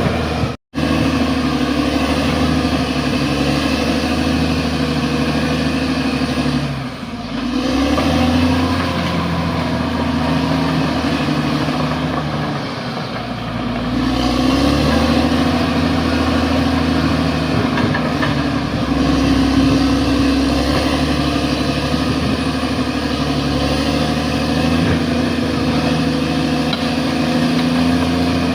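Bulldozer's diesel engine running steadily under work. Its revs dip briefly twice, about a third of the way in and near the middle, then pick back up.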